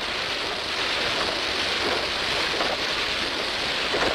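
Steady, even rushing noise of a steel pipe mill's strip-preparation line running, with no distinct beat or tone.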